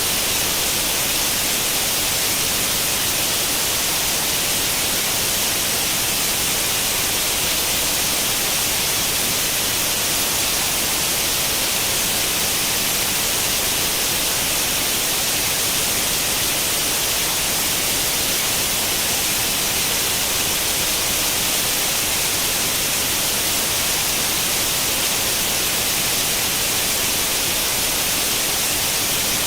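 Steady hiss of white noise like the static of an old tube television tuned to no channel, weighted toward the high end and unchanging.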